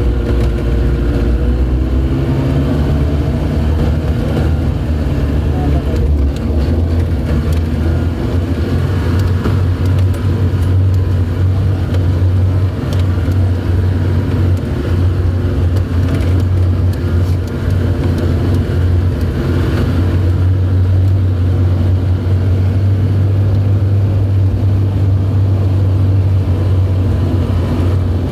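Four-wheel-drive vehicle's engine running steadily in low gear on a rough rocky dirt track, a loud low drone heard from inside the cab, with occasional knocks and rattles as it goes over bumps.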